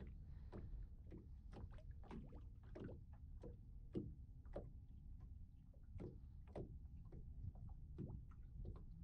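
Small waves lapping against the boat's hull: faint, irregular light slaps over a low wind rumble.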